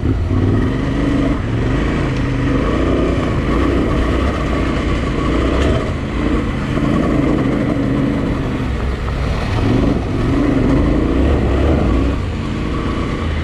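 Adventure motorcycle engine pulling up a dirt hill climb, revs rising and falling again and again with the throttle.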